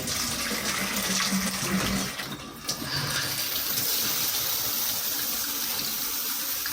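Shower turned on: water spraying from a filtered shower head, a sudden start and then a steady rush, with a faint low hum over the first two seconds.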